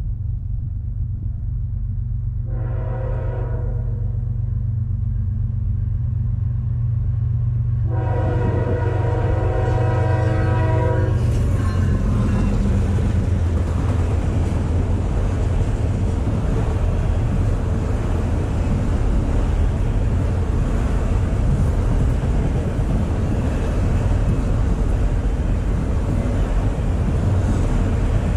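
Norfolk Southern freight train approaching and passing: a low diesel engine rumble under two horn blasts, a short one about two and a half seconds in and a longer one about eight seconds in. Then the locomotives go by and the loud, steady noise of empty autorack cars rolling over the rails fills the rest.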